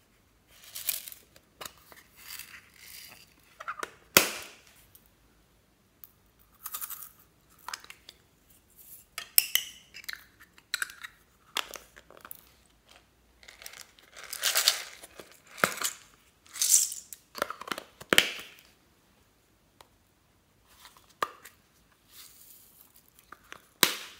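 Hands handling small plastic toy containers: an irregular series of sharp clicks, snaps and rattles as they are opened, with short rustles of small items such as glitter and beads tipping into a glass dish.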